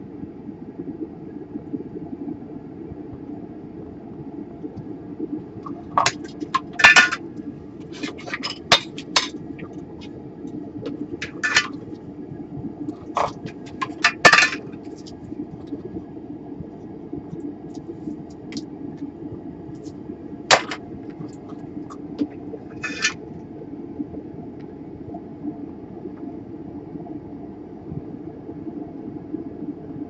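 Light metallic clinks and taps of soldering tools during desoldering work, a scattered run of them through the middle, over a steady low hum.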